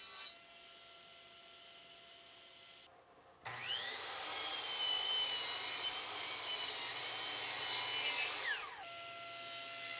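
Delta 10-inch sliding miter saw starting suddenly about three and a half seconds in, its motor whining up to speed and cutting through a plywood board, then winding down with a falling whine near the end.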